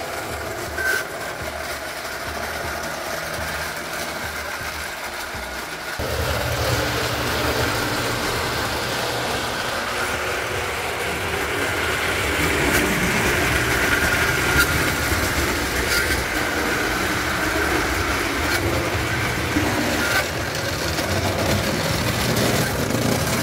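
Pre-war Lionel No. 156 tinplate O gauge electric locomotive running on three-rail track with its passenger cars: a steady motor hum and wheel rumble with a few sharp clicks. It gets louder about six seconds in.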